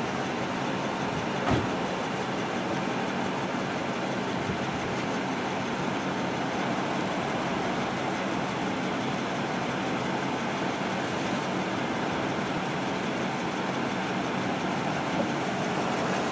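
Steady rumble of road traffic and running vehicles, with one short knock about a second and a half in.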